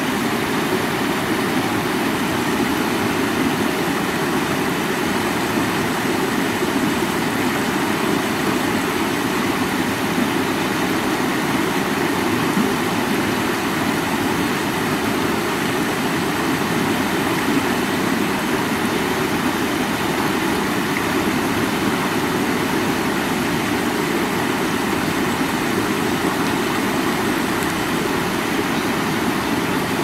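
Shallow rocky river flowing over stones and small rapids: a steady, even rush of water.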